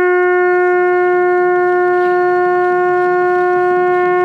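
A loud, steady whistle-like tone held at one pitch for several seconds, with a reedy, horn-like timbre.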